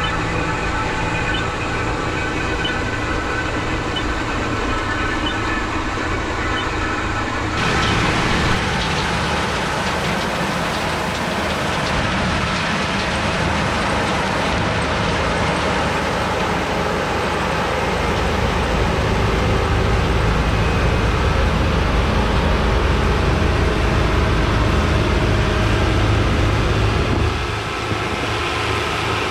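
New Holland TR89 combine harvester running steadily while harvesting oats, a continuous loud machine drone. About a quarter of the way in it changes abruptly from a humming tone to a broader, noisier rush. It gets heavier in the low end in the second half and eases slightly near the end.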